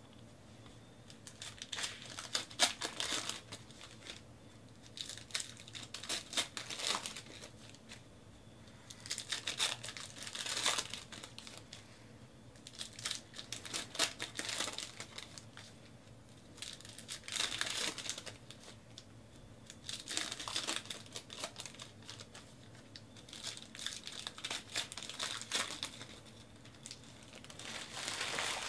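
2018 Panini Classics Football card-pack wrappers being torn open and crinkled by hand, one pack after another, in short crackly bursts every few seconds.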